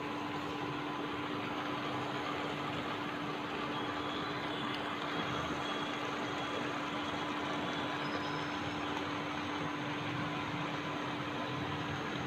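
Methi curry boiling in a pan on the stove: a steady bubbling hiss with a constant low hum beneath it.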